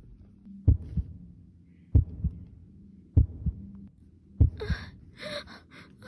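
Heartbeat sound effect: four slow lub-dub double thumps, about one beat every second and a quarter, over a faint low hum.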